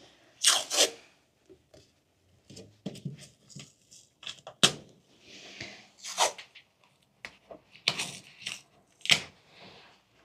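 Adhesive tape pulled off the roll in about five sharp rips, with rubbing and rustling between, as the tape is pressed on to hold a glued PVC corner bead against an outside wall corner.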